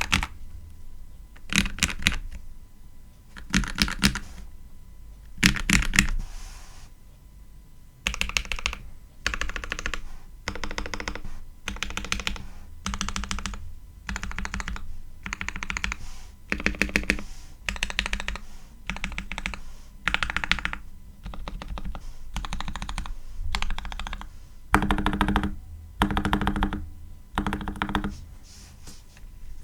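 Ikki68 R1 mechanical keyboard with Gateron Ink V2 switches and all dampeners installed, being typed on. A few separate heavy keystroke bursts come first, then from about eight seconds in, steady runs of rapid key presses about once a second.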